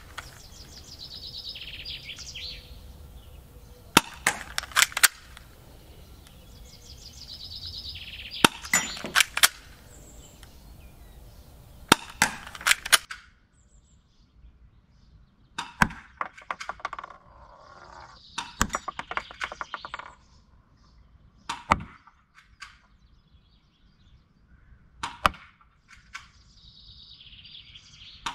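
Walther P99 airsoft pistol firing 0.20 g BBs at small targets 12 m off: about a dozen sharp shots, some in quick pairs early on and then single shots a few seconds apart, with the clang of BBs striking the targets.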